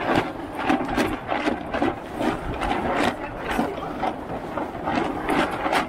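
Irregular clicking and knocking aboard a small racing sailboat, a few sharp strikes a second, over a steady rush of wind and water.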